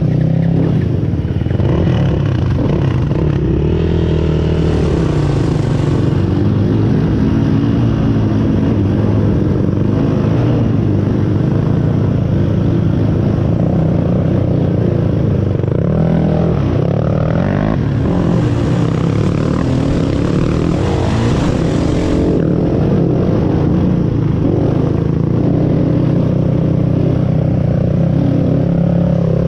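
Engine of an off-road vehicle running steadily while driven along a trail, its pitch shifting a little with the throttle. A rushing hiss comes in briefly about four seconds in and again for a few seconds past the middle.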